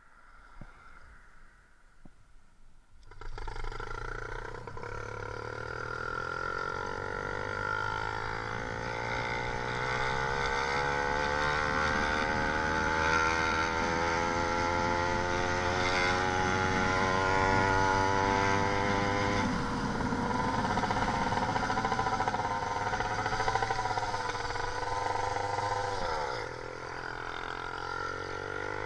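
YD 100 two-stroke motorised-bicycle engine with a big blast pipe starting up about three seconds in, then running with its pitch climbing slowly as it speeds up. Later the pitch wavers up and down, dips sharply near the end and climbs again: the bogging out that the owner blames on carburetor jetting he can't get right.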